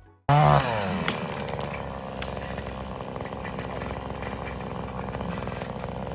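Chainsaw engine running at high revs, coming in abruptly; its pitch drops sharply in the first moment, then holds steady.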